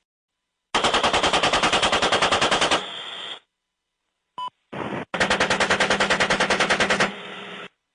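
Automatic machine-gun fire in two sustained bursts of about two seconds each, at roughly ten rounds a second, each followed by a short, quieter tail.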